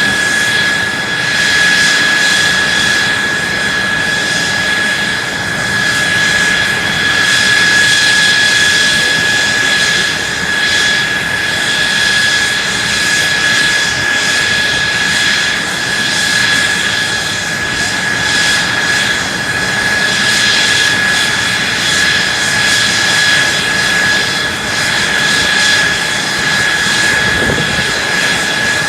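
Mitsubishi F-2's single General Electric F110 turbofan running steadily during a ground run: a loud, even rush with a steady high-pitched whine over it.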